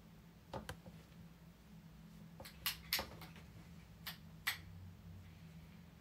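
Low steady hum with a scattered series of short, sharp clicks, about eight in all, the loudest around the middle.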